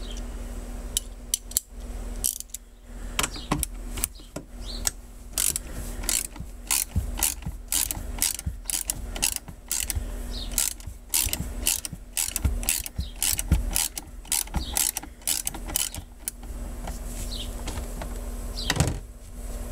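Hand ratchet wrench clicking in quick runs while factory bolts are worked loose, over a steady low hum.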